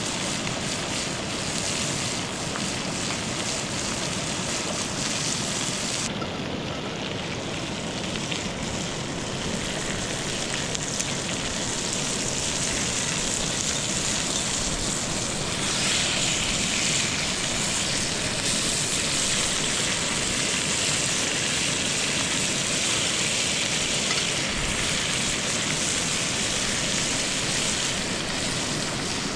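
Steady rushing of a flowing river, an even noise without pitch that grows brighter and a little louder about halfway through.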